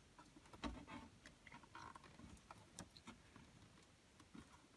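Faint, scattered clicks and light plastic handling noises as a wiring connector and retainer clip are worked loose on a TV's circuit board.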